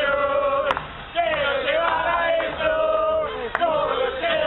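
A crowd of football fans singing a chant together in held, drawn-out lines. Two sharp knocks cut through, about a second in and again near the end.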